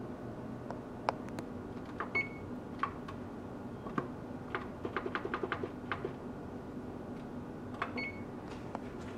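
Electric range's touch control panel being keyed: fingertip taps on the keys, with a quick run of taps in the middle, and two short high beeps about six seconds apart as the settings are entered. A steady low hum runs underneath.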